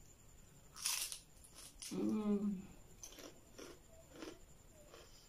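A bite into a crisp, golden-fried corn-tortilla taquito: a sharp crunch about a second in, followed by crunchy chewing, about two crackles a second.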